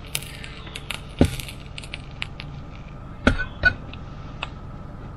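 Cookware being handled: a heavy thump about a second in, then two sharp clinks in quick succession a little past three seconds, the second one ringing briefly like a metal lid or pot. Light clicks and taps fall in between.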